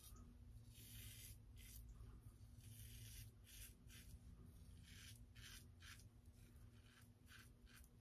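Faint scraping of a Merkur 37C slant safety razor cutting through lathered stubble, in a quick series of short strokes.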